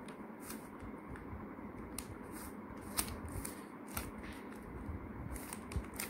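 Plastic stickerless 3x3 Rubik's cube being turned by hand, its layers making quiet, irregular clicks as an algorithm is worked through.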